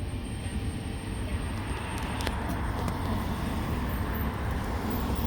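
Steady low rumble of a car heard from inside the cabin, with a few faint clicks about two seconds in.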